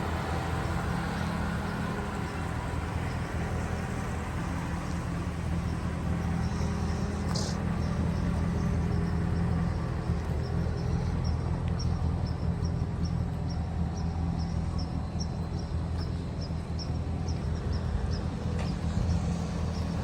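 Pickup truck engine idling steadily. A brief high squeak comes about seven seconds in, and a run of quick, high chirping ticks, about two or three a second, follows through the second half.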